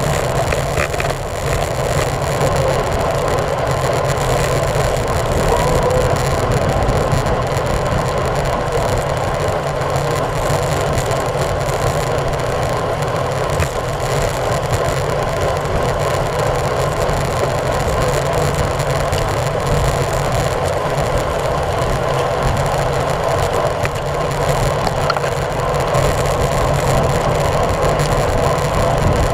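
Steady wind and road noise on a bike-mounted action camera's microphone while riding a road bicycle, a constant rush with a low rumble underneath.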